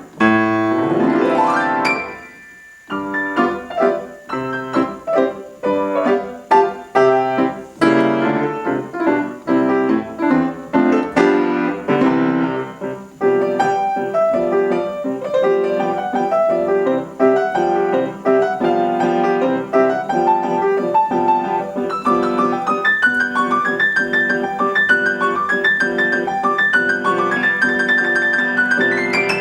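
Solo piano playing: a quick rising run, a brief pause about two to three seconds in, then continuous chords and fast passagework.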